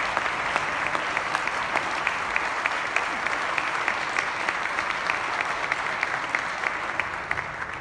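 Audience applauding, dense clapping with individual claps standing out, starting to die away near the end.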